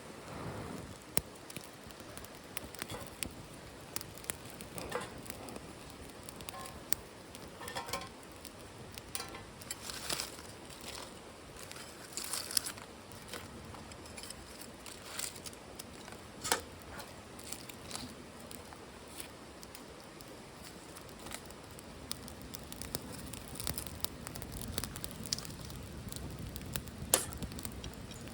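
Small wood fire in a titanium wood stove crackling, with irregular sharp snaps and pops scattered over a low rustle.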